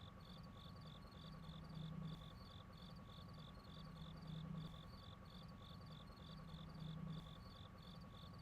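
Faint cricket chirping steadily, about three chirps a second, over a low hum that swells and fades every two to three seconds.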